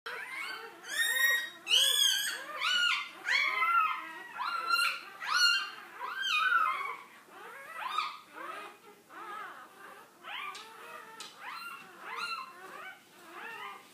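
Dog whimpering: a string of high cries that rise and fall, about one or two a second, louder in the first half and softer later.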